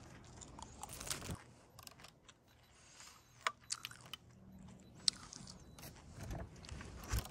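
Faint scattered clicks and knocks of people moving about on a wooden deck and handling small objects, with a louder thud near the end.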